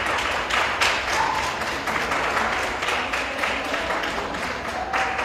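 Audience applauding: many people clapping together at an even level.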